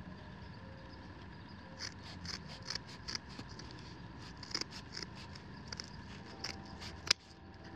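Scissors snipping through a Scotch-Brite heavy-duty scour pad: a run of small, quiet snips starting about two seconds in, ending with one sharper, louder snip near the end.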